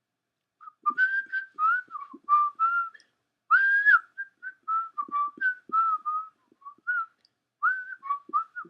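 A person whistling a tune: a string of short notes, some sliding up or down, with brief pauses between phrases.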